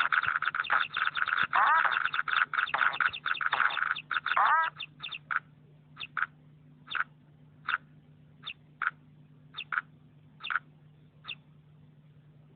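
A ringtone playing from an HTC Desire XC phone's speaker: fast runs of short, high chirps that thin out after about four and a half seconds into single chirps, or pairs of chirps, every half second to a second, stopping shortly before the end. A faint steady low hum lies underneath.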